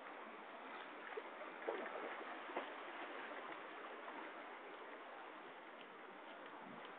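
Water rushing steadily at a waterfall, with a few faint brief knocks about one to three seconds in.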